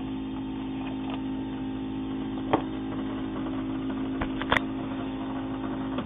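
Keurig K-Cup coffee maker's water pump running with a steady hum, two sharp clicks about halfway and near the end, and the hum stopping right at the end.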